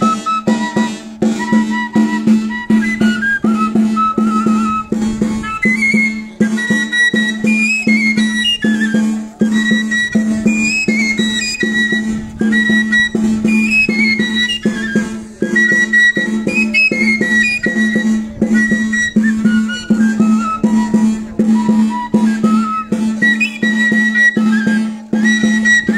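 Live band playing a lively traditional Andean tune: a high wind melody over a held low note, with quick percussion beats throughout.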